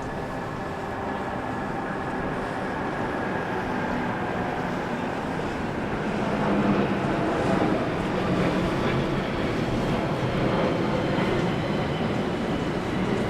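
Boat engines running, a steady mechanical rumble that grows louder about halfway through.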